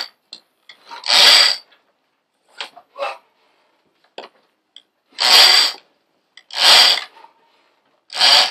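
Main halyard being eased around a sailboat's winch drum a little at a time to lower the mainsail for a reef: the rope slides over the drum in about four short runs of half a second each, with a few small clicks between them.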